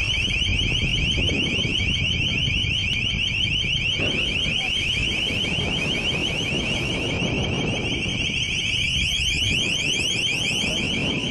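An electronic alarm sounding continuously: a high tone that sweeps upward over and over, several times a second, over a steady low rumble.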